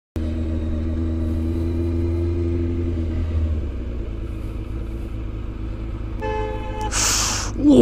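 Sport motorcycle engine running steadily under way, its note settling lower about three and a half seconds in. Near the end a vehicle horn sounds briefly, followed by a loud rushing burst of noise.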